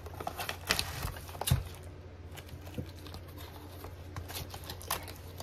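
Scattered light knocks and clicks of items being handled and set down on a table, a few sharper taps among them, over a steady low electrical hum.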